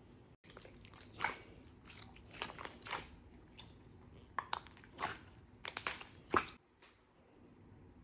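Slime being squeezed and worked by hand, giving a string of short, irregular noises that stop near the end.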